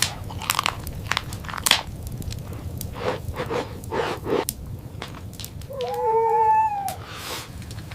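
A dog gives one short whine, about a second long, about six seconds in. Around it are scattered clicks and knocks over a steady low rumble.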